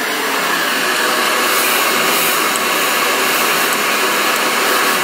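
BaByliss Pro ItaliaBRAVA hand-held blow dryer running steadily, blowing onto hair wrapped around a round brush during a blowout.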